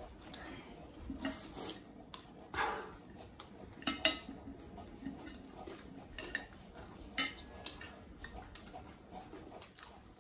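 Metal spoons clinking and scraping on glass plates as chatpat is scooped up, with crunchy chewing in between. The sharpest clink comes about four seconds in.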